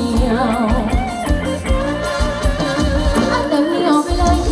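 Live band playing Thai ram wong dance music: a steady drum beat under a wavering melodic lead line.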